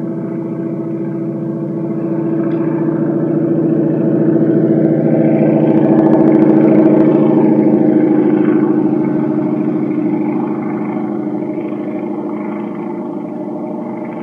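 90 mm electric ducted fan of a Freewing T-45 Goshawk model jet running at a steady pitch, growing louder about halfway through and then fading.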